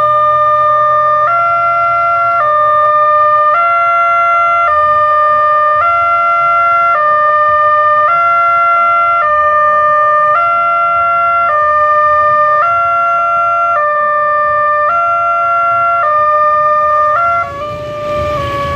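Indonesian railway level-crossing warning alarm sounding its electronic chime, a repeating tune of two notes that steps up and down about once a second. Near the end the alarm dips briefly under a rise of road-traffic noise from motorcycles.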